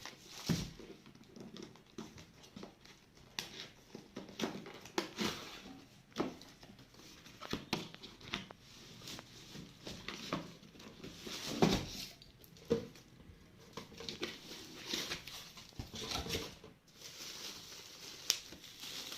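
Packaging being handled while a power supply is unboxed: irregular rustling and crinkling of wrapping, with scattered light knocks and clicks of the unit and its cables being moved about.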